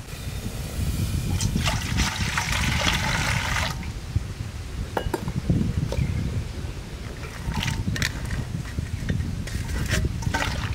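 Water splashing and trickling in a steel bowl for a few seconds. Then sliced onions are dropped into the water, with small splashes and light clicks of a steel plate against the bowl.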